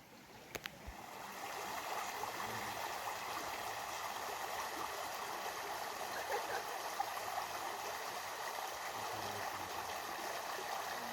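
Running stream water, a steady rushing that swells in over the first couple of seconds, after a few light clicks near the start.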